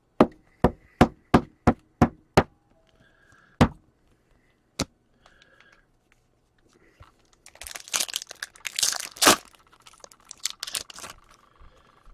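Trading cards being handled: a quick run of about seven sharp clicks, then two more single clicks. From about halfway through, a foil card-pack wrapper crinkles and tears as it is opened.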